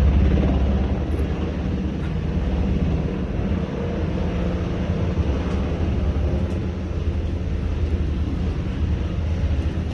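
Coast Guard helicopter arriving, its rotor and engine running steadily with a low, fluttering throb that is loudest at the start and eases slightly after about a second.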